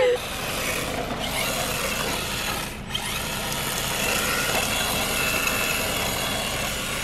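Radio-controlled drift car driving and sliding on asphalt: a steady electric-motor whine with tyre noise, dipping briefly about three seconds in.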